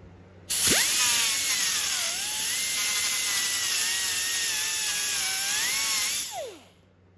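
90-degree die grinder spinning up quickly, running for about five seconds with a high whine and a strong hiss, dipping in pitch about two seconds in, then winding down. It is cleaning rust off the caliper bracket's pad contact surfaces.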